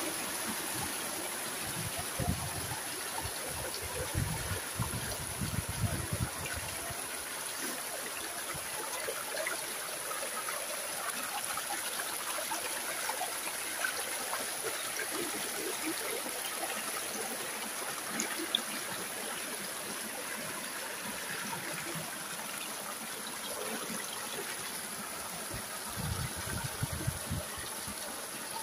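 Mountain stream running over rocks, a steady rushing and trickling wash with a small cascade splashing into a pool. A few low bumps come near the start and near the end.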